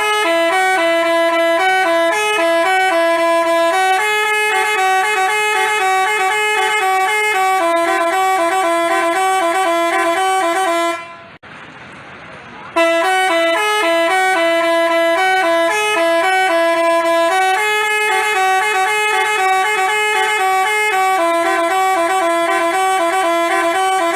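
Basuri telolet bus horn playing a tune of clear, changing notes. The same phrase plays twice, with a short break about eleven seconds in.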